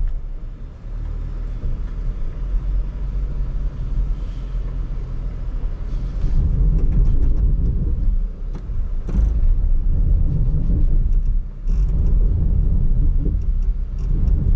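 2022 Jeep Grand Cherokee 4xe's engine and drivetrain working under load in four-wheel low as it creeps up a sandy slope, struggling for traction. The low drone grows louder about six seconds in and drops briefly near the end.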